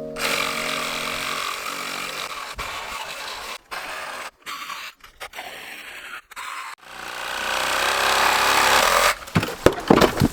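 Chainsaw cutting into old wooden railway sleepers, heard in several short stretches broken by abrupt cuts, the sound building up again in the second half. Near the end come a few sharp, heavy knocks of wood.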